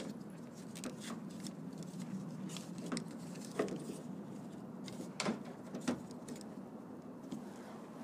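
A handful of light plastic-and-metal clicks and taps as fingers work the yellowed plastic linkage clip on a car door's outside handle and lock cylinder, trying to ease it off, over a faint steady low hum.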